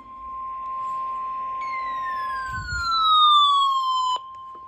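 NOAA Weather Radio's 1050 Hz warning alarm tone sounding steadily, signalling an incoming severe thunderstorm warning. About a second and a half in, a louder second tone starts high and slides down in pitch for about two and a half seconds, then cuts off with a click.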